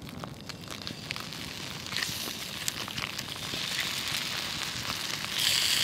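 Wood campfire crackling with scattered small pops, while creamy potato slices squeezed from a pouch land in a hot frying pan and begin to sizzle. The sizzling hiss gets louder about five seconds in.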